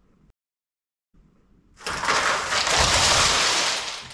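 Dead silence, then about a second and a half in a loud rushing noise that swells up and holds for about two seconds before fading near the end.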